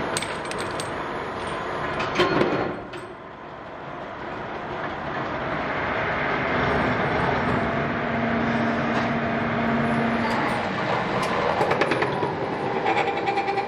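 Workshop machinery running, with metallic clatter and knocks from steel sprocket blanks being pressed and handled. A steady hum comes in around the middle, and a quick rattling run of clanks comes near the end.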